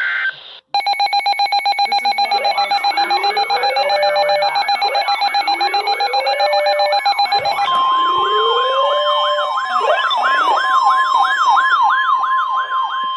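Several electronic sirens sounding together: repeated rising-and-falling sweeps about twice a second and slower rising wails underneath, over a rapidly pulsing alarm tone. About halfway through, the pulsing changes to a steady tone while the sweeping siren carries on.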